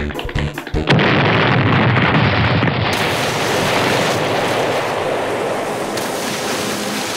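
Cartoon explosion sound effect from a giant hand grenade: a sudden blast about a second in, followed by a long rushing rumble that eases off only slightly. It comes after a second of rhythmic cartoon music.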